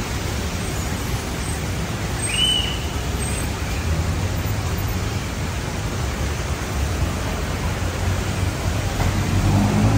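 Steady rain falling, with the low hiss and rumble of traffic on the wet road below. A brief high chirp sounds about two and a half seconds in, and a passing vehicle's engine note rises near the end.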